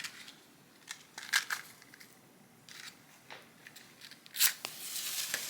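Scattered handling noises: short crinkles, taps and scrapes of things being moved about, the sharpest about a second and a half and four and a half seconds in, with a longer rustle near the end.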